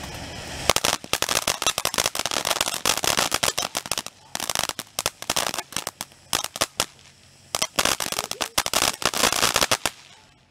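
Ground fountain firework spraying sparks: a brief hiss, then rapid crackling pops, many a second, coming in bursts that thin out in the middle and die away near the end.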